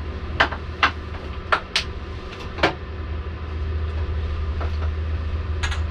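Six short, sharp knocks and clinks from tools and parts being handled during a motorcycle engine swap, most of them in the first three seconds and one near the end, over a steady low hum.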